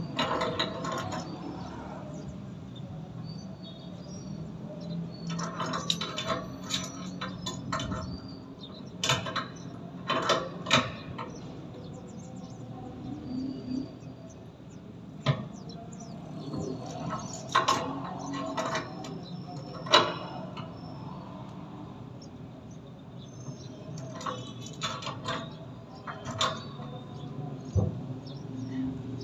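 Irregular clinks and knocks of hand tools and metal fittings being handled during a water tank repair, some in quick clusters, over a steady low hum.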